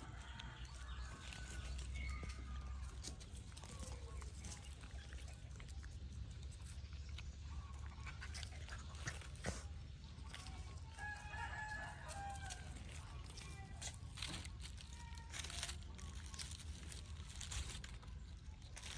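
A rooster crowing, once near the start and again about halfway through, with chickens clucking, over scattered crackles of dry leaves and twigs.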